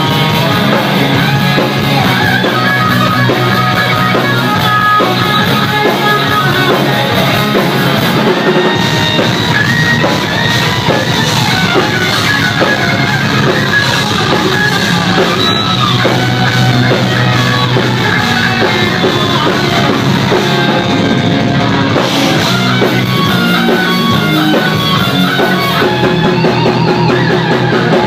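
Rock music with electric guitar and drums, loud and continuous.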